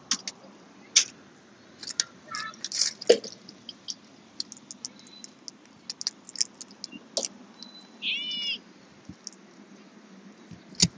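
Boiled crawfish shells cracking and snapping as they are peeled by gloved hands, a run of sharp crackles and clicks. About eight seconds in comes a short, high-pitched bird call.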